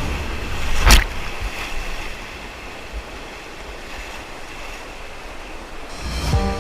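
Rushing whitewater with wind buffeting the microphone, and one sharp, loud hit about a second in.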